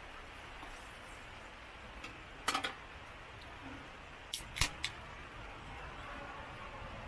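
Steady hiss of heavy rain, with one sharp click or tap about two and a half seconds in and a quick cluster of two or three more near the middle.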